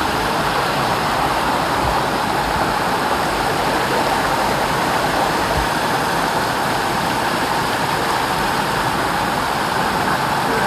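Steady rush of water in a rocky mountain river and waterfall.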